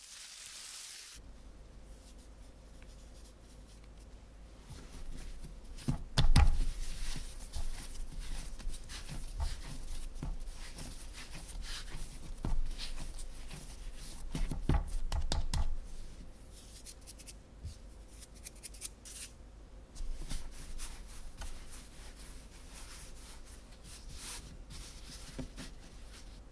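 Hands working a block of manju dough on a floured countertop: plastic wrap crinkling as the wrapped dough is pressed, dull thumps as the dough is kneaded and pressed against the counter about six seconds in and again around fourteen to sixteen seconds, and soft rubbing as it is rolled into a log.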